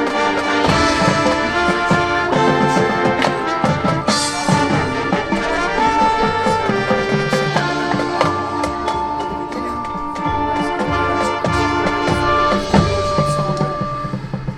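Marching band playing: the brass section holds full sustained chords over drum and cymbal hits.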